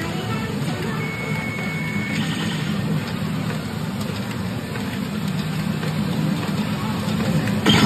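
Steady din of a pachinko parlor: a dense wash of noise from many machines and their steel balls, with one brief high electronic beep about a second in.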